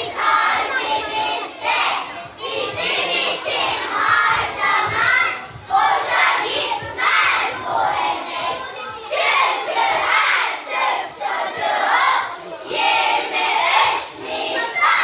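A group of children's voices in unison, in loud phrases of a couple of seconds each with brief breaks between them.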